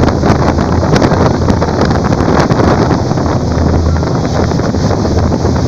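Wind blasting the microphone on board a high-speed ferry under way, over the rush of its churning wake and a low steady rumble.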